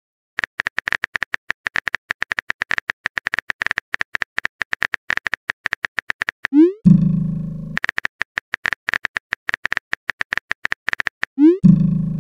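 Chat-app sound effects: a long run of rapid phone-keyboard typing clicks, broken twice by a quick rising swoop and a short, low message tone, about seven seconds in and again near the end.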